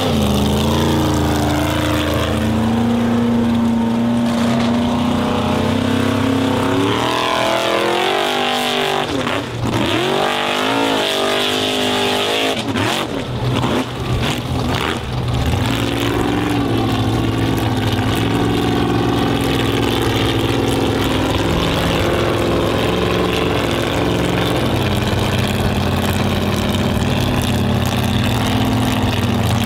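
Formula Offroad racing 4x4's engine running hard under throttle. Its note swings up and down quickly a quarter to a third of the way in, then settles to a steadier high-revving drone with small steps in pitch.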